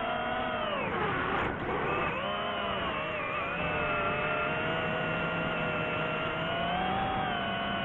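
Drone motors and propellers whining. The pitch drops sharply about a second in, climbs back within a second, then holds fairly steady with small wavers.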